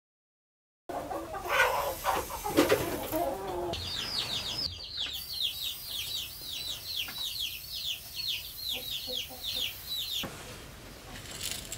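Chickens: a hen clucking, then a long run of high, falling peeps, about three a second, that stops suddenly near the end.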